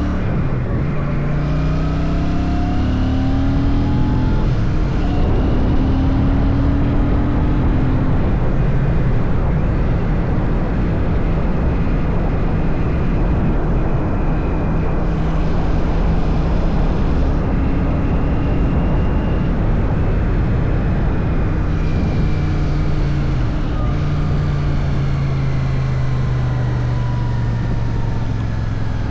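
Royal Enfield Shotgun 650's parallel-twin engine running on the move under heavy wind rush on the microphone. The engine note rises and falls a few times.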